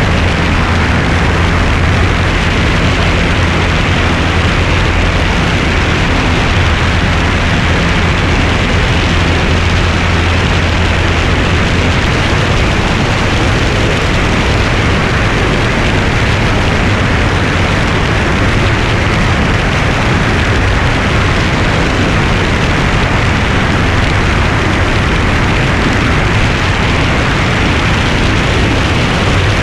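Wind rushing hard over a wing-mounted camera in flight, over the steady drone of a light single-engine propeller airplane. A low hum in the drone weakens about twelve seconds in.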